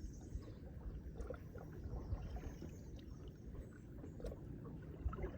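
Kayak paddling on calm water: soft paddle splashes and a few small knocks against the kayak, over a low steady rumble.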